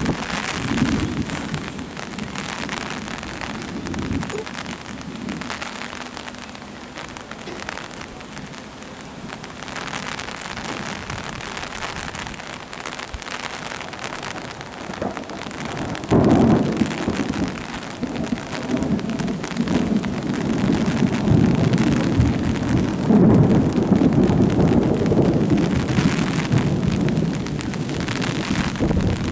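Rain falling steadily with thunder. A long rolling rumble starts a little past halfway and is the loudest part.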